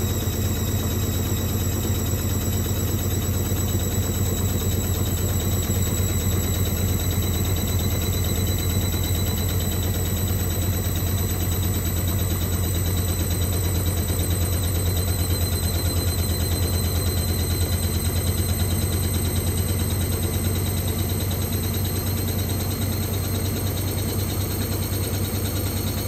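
Hoover-built Teco 9 kg front-loading washing machine running mid-cycle with water in the drum: a steady low motor hum with thin high whines that creep slightly upward in pitch, unbroken throughout.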